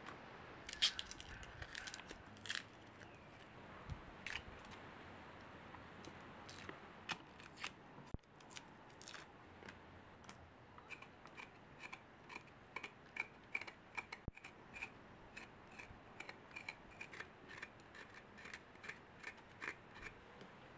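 Ingredients being cut with a blade: scattered crisp cuts at first, then a steady run of about two or three crisp cuts a second from about halfway.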